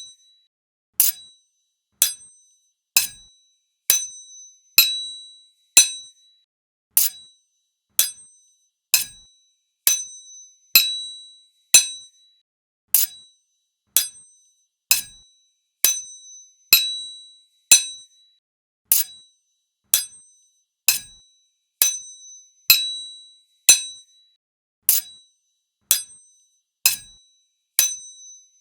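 Sword blades clashing, metal on metal, about once a second, each strike sharp and ringing out with a high metallic tone that dies away within about half a second; some strikes are followed closely by a lighter second hit.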